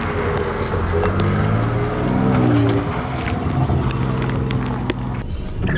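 Ford Ranger pickup's engine running at low speed as it crawls down a rocky track, its note shifting a little up and down, with scattered clicks and knocks.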